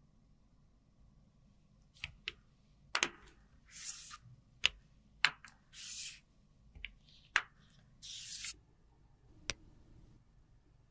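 Small plastic eyeshadow compacts with clear hinged lids being handled: a string of sharp clicks and taps from the plastic cases and lids, with three short hissing swishes in between.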